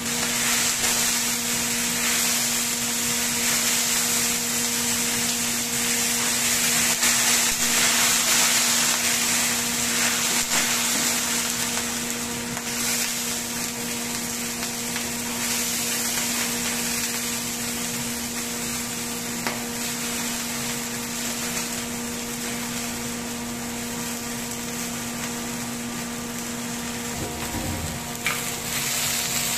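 Pork belly cubes sizzling in a hot wok of caramelized sugar as they are tipped in and stirred with a ladle, a steady hiss with a few faint ladle clicks. Under it runs a constant low machinery hum.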